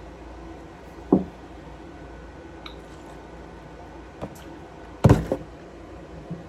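A few household knocks and thuds over a steady low hum: a sharp one about a second in, a smaller one around four seconds, and the loudest, a quick double thud, about five seconds in.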